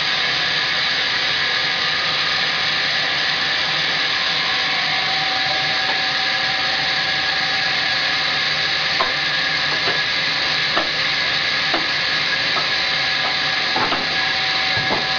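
Sawmill saw running steadily as a log is fed through it, a continuous hissing noise with a steady tone. A few light knocks come in the second half.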